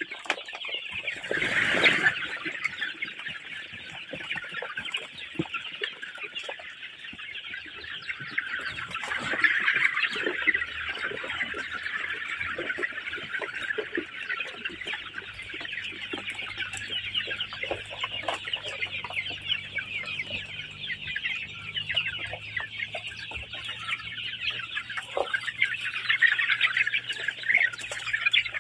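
A large flock of young chickens calling all at once in a dense, continuous high-pitched chatter of peeps and clucks, swelling louder about two seconds in and again around ten seconds.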